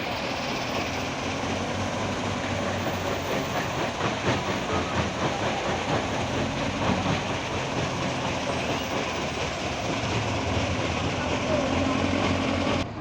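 Heavy diesel construction machinery running loud, with continuous rattling and metallic clanking over the engine; the sound cuts off abruptly at the very end.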